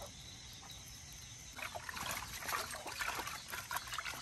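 Water sloshing and splashing in a plastic basin as a hand stirs it, starting about a second and a half in, mixing a wash solution into the water.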